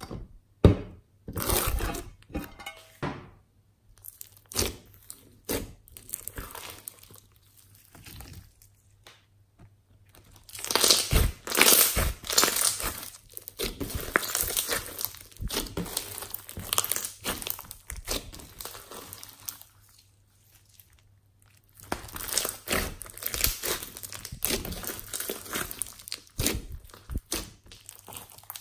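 Hands squeezing, pulling and kneading a large mass of foam-bead slime, giving irregular spells of crackling and crunching with short quiet pauses between handfuls.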